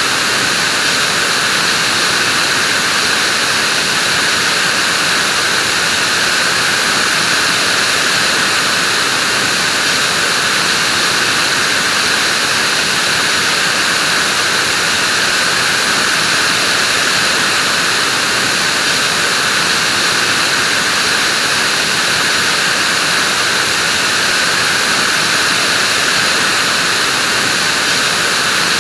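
Vacuum cleaner running steadily, an even, unbroken whooshing hum with a strong hissy upper band.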